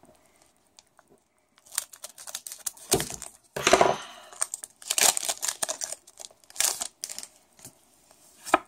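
Foil wrapper of a Pokémon trading card booster pack being torn open and handled, crinkling and tearing in irregular short bursts, loudest in the middle.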